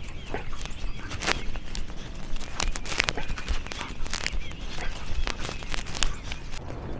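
Irregular footsteps with scattered sharp clicks and knocks over a steady low rumble.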